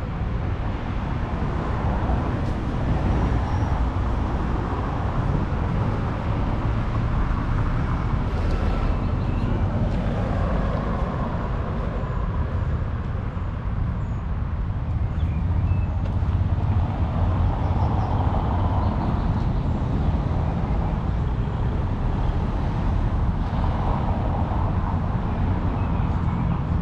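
City street traffic: a steady low rumble with cars passing now and then, each swelling up and fading away.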